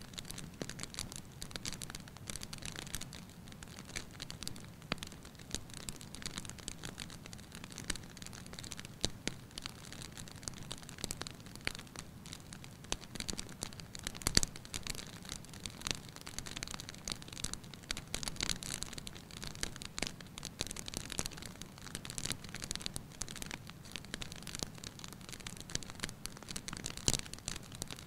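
Wood log fire crackling: a dense, continuous run of small pops and snaps over a low, steady rush of flame, with one louder pop about halfway through and another near the end.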